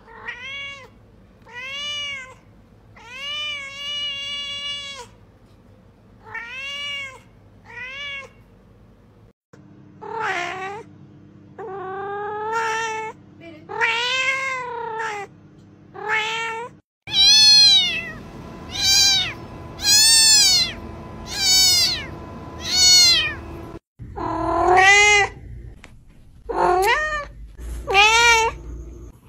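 A long run of cat meows, about one a second, each rising and then falling in pitch. The background changes abruptly a few times as different meowing cats follow one another, and the meows in the second half are louder and higher.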